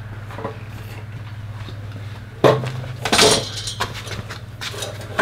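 Metal clanking from a wheeled magnetic sweeper bar being carried and handled: a sharp knock about two and a half seconds in, then a ringing metallic clatter. A steady low hum runs underneath.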